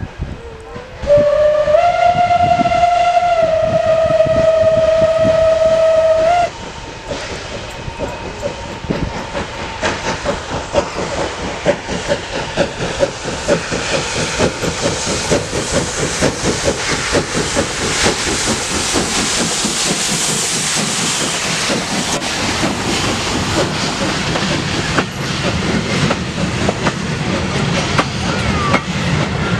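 Steam locomotive sounding one long whistle blast, rising briefly then held at a steady pitch for about five seconds. The whistle stops, and the engine's exhaust beats come on in a quick rhythm, growing louder as it works past with its coaches, whose wheels clatter over the rail joints near the end.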